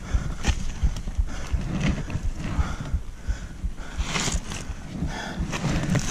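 Hard, gasping breathing of a mountain biker who has just crashed and is down in the scrub, with rustling of dry leaves and small knocks as he shifts on the ground.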